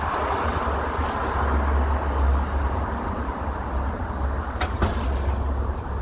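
Steady street traffic noise with a strong low rumble. Two quick clicks come a little over four and a half seconds in.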